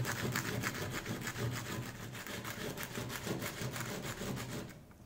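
Soldering iron tip rubbed back and forth on sandpaper in quick, even rasping strokes, scouring the black oxide coating off the tip so solder will stick again. The rubbing stops suddenly near the end.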